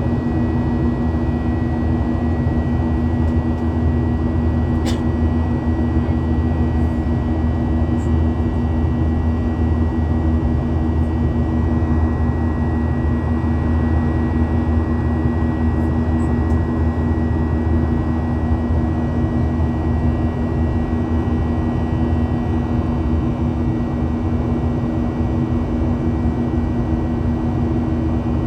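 Steady cabin drone of a Boeing 737-800 airliner: CFM56 jet engines and airflow heard from inside the cabin. It holds an even low hum with a thin high whine over it, unchanging throughout. There is a single brief click about five seconds in.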